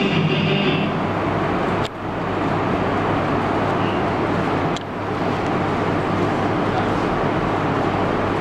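Steady rushing background noise with a low hum, broken by brief dropouts about two and five seconds in; a last bit of music fades out in the first second.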